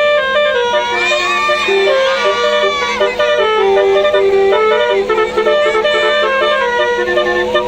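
Telolet basuri multi-tone horn playing a melody in quick stepped notes, each held at a steady pitch, over a steady low hum.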